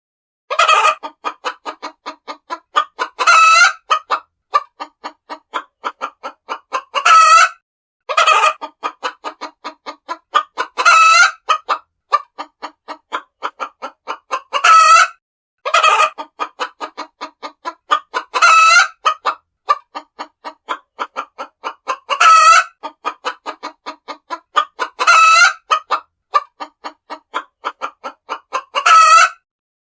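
Hens cackling: quick runs of short clucks, about four a second, each building to a louder, drawn-out squawk roughly every three and a half seconds, over and over.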